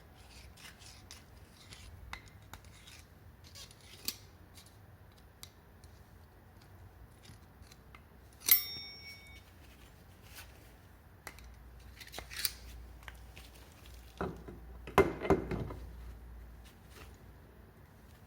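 Small clicks and taps of metal scooter clutch parts and tools being handled during greasing, with one sharp ringing metal clink about eight seconds in and a louder clatter of knocks near the end.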